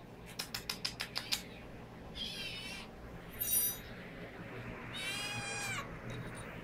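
Young snowshoe kitten mewing three times: a short mew about two seconds in, a higher, squeakier one a second later, and a longer mew near the end. A quick run of about eight light clicks comes first.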